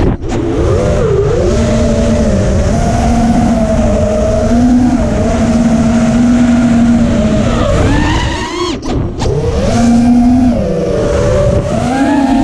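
FPV quadcopter's brushless motors and propellers whining loudly as heard from its onboard camera, the pitch rising and falling with the throttle. The whine cuts out briefly just after the start and again about nine seconds in, after a rising surge, then comes straight back.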